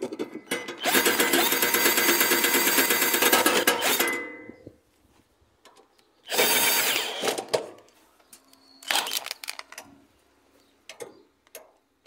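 Power drill running in short runs to drive in the bolts of a washing machine transmission's oil pan cover: one long run of about three seconds, then two shorter ones.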